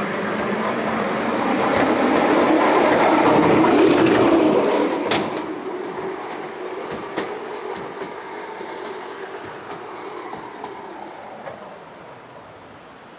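Wheeled bobsleigh push-start sled rolling on steel rails, a rumble that builds as the crew pushes it off and fades as it runs away down the track. Two sharp clicks stand out about five and seven seconds in.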